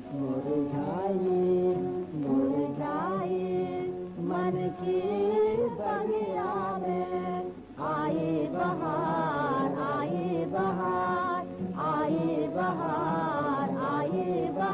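A woman singing a Hindi film song with gliding, ornamented phrases over instrumental accompaniment.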